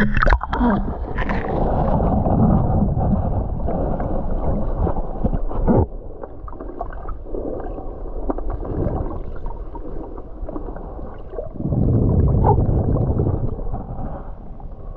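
Muffled gurgling and sloshing of lake water heard underwater, with a sharp splash just as it goes under. It is louder for the first six seconds, drops, and swells again about twelve seconds in.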